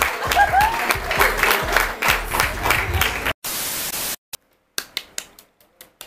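Music with a steady beat and rhythmic clapping. About three seconds in, it cuts off abruptly into a short burst of static hiss, then near quiet with a few faint clicks.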